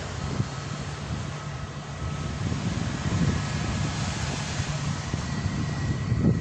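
Wind buffeting the microphone, with the faint steady whine of an approaching aircraft's engines growing from a couple of seconds in.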